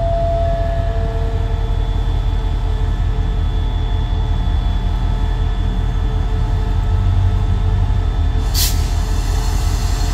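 Diesel-electric locomotive of SRT's QSY class running with a steady low engine rumble as it pulls its train slowly forward. A short burst of hiss comes near the end.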